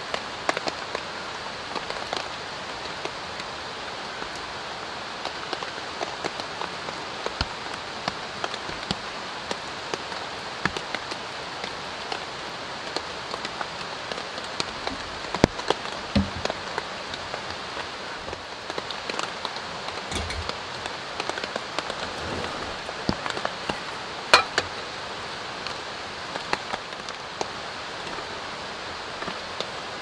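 Steady light rain, a drizzle, with drops ticking all through it. A few louder sharp knocks come from cookware being handled, the sharpest about halfway through and again past two-thirds of the way.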